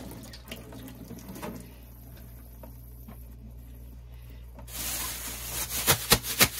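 Hands brushing and patting spilled flour on a stainless-steel kitchen counter. A soft rubbing starts about two-thirds in, then comes a quick run of sharp slaps near the end. Before that there is only a faint low hum.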